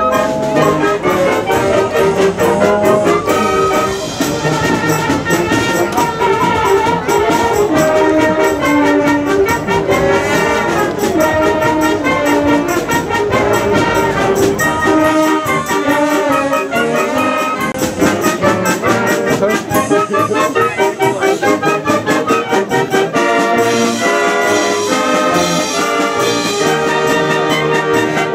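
A wind band playing a tune, with brass leading the melody; the lowest bass drops away about halfway through.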